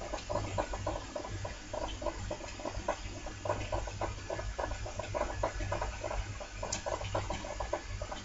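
Water bubbling continuously in quick, irregular little pops over a steady low hum.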